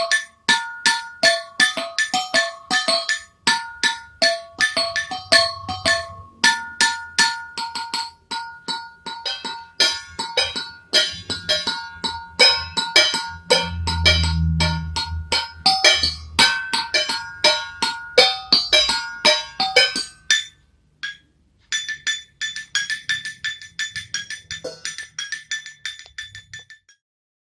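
Rhythmic percussion played on struck kitchen utensils: quick patterns of short ringing notes at several pitches, with a deep low sound swelling around the middle. The playing breaks off about two-thirds of the way in, then returns as lighter, higher repeated strikes before stopping.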